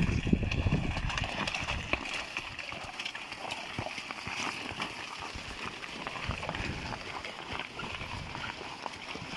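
Hooves of a draught mare pulling a cart on a gravel road, clip-clopping faintly in the distance. A low rumble covers the first couple of seconds.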